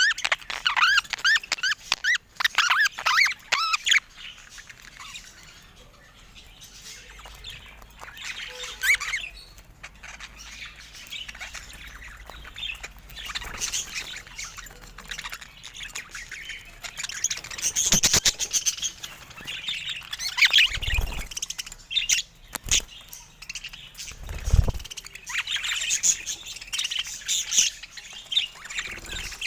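Budgerigars chirping and warbling in quick, rapid runs, busiest in the first few seconds and again in the second half, with two short dull thumps in the middle.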